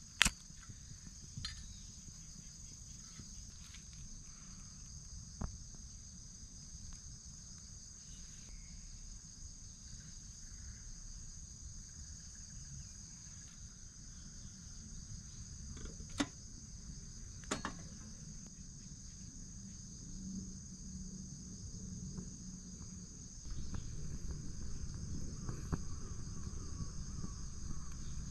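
Crickets chirping in a steady, continuous high trill, with a few sharp clicks over it. A low noise underneath grows louder about three-quarters of the way through.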